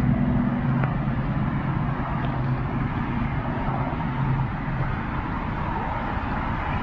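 City road traffic: a steady wash of passing cars with a low engine drone that fades about five seconds in.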